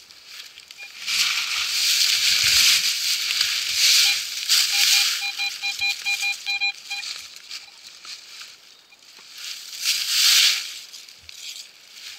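Dry fallen leaves rustling and crunching as the searcher moves and sweeps the detector over them, with bursts about a second in, around four seconds and about ten seconds in. Between about five and seven seconds in, a metal detector gives a quick run of about eight short beeps, about four a second, signalling metal in or beside the freshly dug hole.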